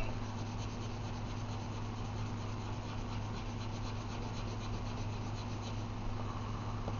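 Pencil shading on paper: rapid back-and-forth strokes of the lead rubbing across the sheet, over a steady low hum.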